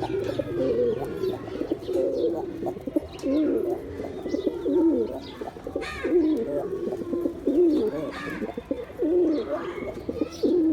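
Male pigeons cooing continuously, several overlapping throaty coos that rise and fall in pitch.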